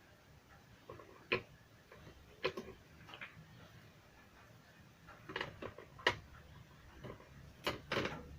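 Irregular light clicks and taps of small hard objects, about a dozen scattered across a few seconds, loudest near the end; small tools and plastic speaker parts being handled during the repair.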